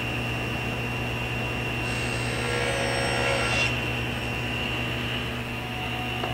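Table saw running at full speed with a steady high blade whine over the motor hum; for about two seconds in the middle the blade cuts through the wood, adding a harsher hiss. The saw is switched off near the end and the whine begins to fall as the blade coasts down.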